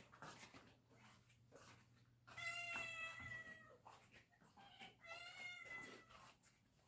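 A cat meowing twice: two drawn-out meows, each about a second long, the first about two seconds in and the second about three seconds later.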